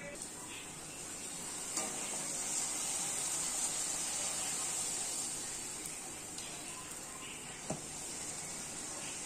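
Poori deep-frying in hot oil in a kadai: a steady sizzle that swells about two seconds in as the dough goes into the oil. A short knock comes near the end.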